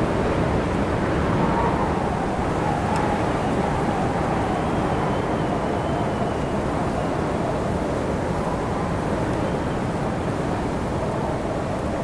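Steady wind blowing, with a faint wavering whistle that drifts in pitch.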